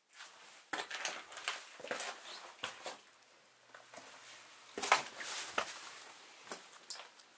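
Footsteps crunching and scraping over loose concrete rubble and debris, an irregular run of steps that pauses briefly in the middle.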